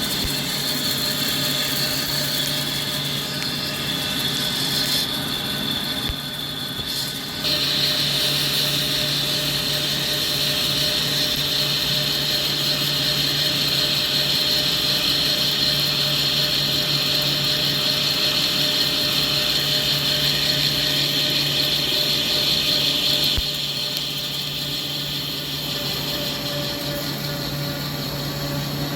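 CNC lathe running while machining a steel spur pinion shaft: a steady motor hum under a hissing cutting noise. The hiss grows louder about seven seconds in and drops back a few seconds before the end.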